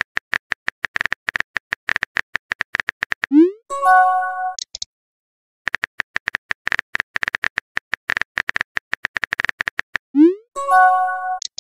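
Rapid on-screen keyboard typing clicks, twice cut off by a message-sent sound effect: a quick rising swoop followed by a short bright chime.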